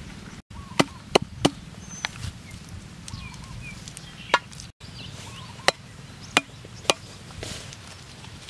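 Large kitchen knife chopping on a wooden log used as a chopping block: about seven single sharp chops at uneven intervals, as banana blossom and red chillies are cut.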